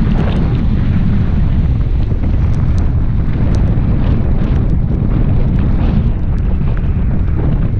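Wind buffeting the microphone of a camera mounted outside a moving car, a loud steady rumble, with the hiss of tyres on a wet road and scattered small ticks.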